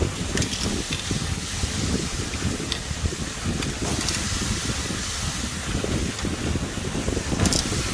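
Chickens roasting over an open fire: a steady hiss and sizzle with a few sharp crackles, over a fluttering low rumble.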